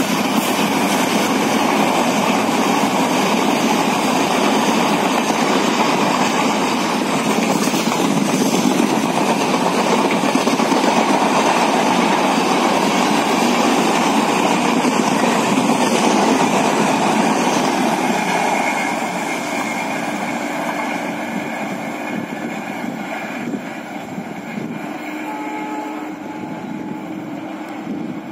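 Passenger coaches of a diesel-hauled express running past on the rails, a loud, steady rush of wheels on track that begins to fade about two-thirds of the way through as the train draws away.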